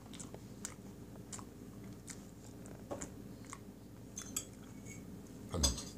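A person chewing soft tiramisu cake close to the microphone: small, irregular wet mouth clicks and smacks, with a louder mouth sound near the end.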